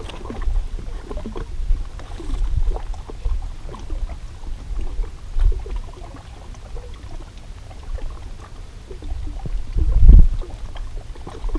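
Wind rumbling on the microphone by a rocky lakeshore, with scattered small knocks and scuffs of boots stepping on the rocks; the rumble swells louder about ten seconds in.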